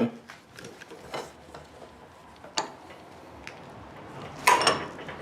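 Small metal clicks and taps, then about four and a half seconds in a loud, ringing metal clank, as a forge-welded piece of steel is worked to see whether the weld tears open.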